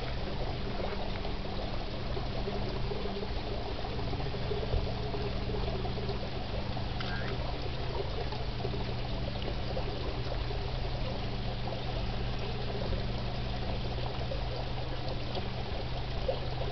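Steady outdoor background noise with a low hum underneath, holding an even level with no distinct events.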